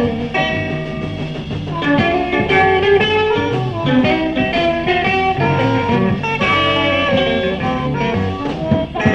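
Live electric blues band playing an instrumental, with a lead guitar over bass and a rhythm section.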